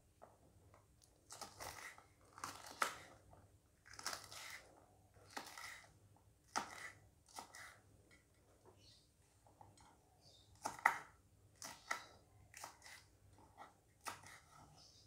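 Kitchen knife slicing fresh green chillies on a wooden cutting board: irregular crisp cuts, about twenty in all, with a short lull about halfway through.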